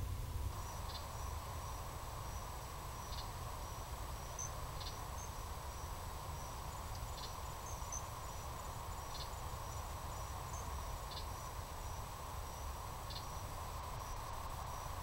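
Night crickets trilling steadily in a high, thin chorus, with a shorter call repeating about every two seconds, heard through a trail camera's microphone with its hiss and low rumble.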